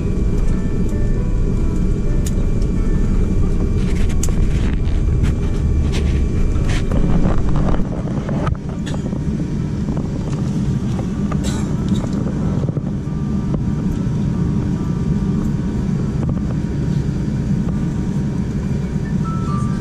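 Cabin noise of a Boeing 787-10 taxiing after landing: a steady low rumble from its Rolls-Royce Trent 1000 engines at idle, with scattered light clicks. The rumble drops slightly about eight seconds in.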